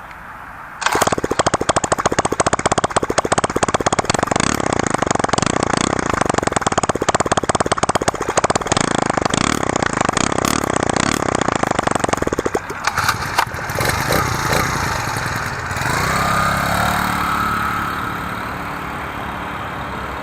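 Huasheng 49cc four-stroke bike engine running with no muffler, a loud, rapid, raw exhaust crackle that comes in abruptly about a second in. About twelve seconds in it changes to a smoother, somewhat quieter running sound with a gliding whine.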